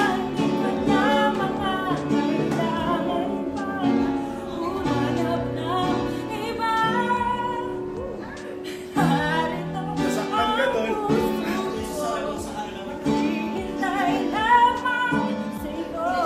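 A woman singing live, accompanying herself on piano.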